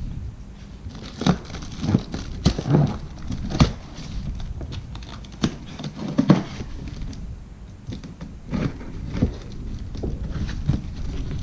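A large cardboard shipping box being opened by hand: cardboard and tape pulled and torn, with irregular sharp knocks and rustling.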